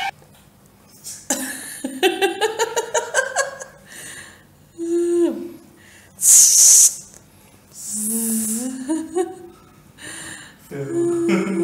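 A person giggling in a quick rising run, then making wordless vocal sounds and breathy exclamations. A loud, short, breathy hiss comes about six seconds in.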